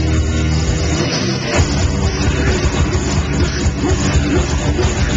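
Metalcore band playing live, with distorted electric guitars, bass and drums, loud and dense. A low chord rings for about a second and a half, then the band kicks back in with busy drumming.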